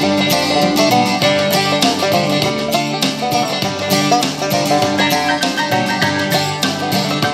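Upbeat bluegrass-style music with plucked banjo and guitar, playing through a Muzen Cyber Cube Pro Bluetooth speaker.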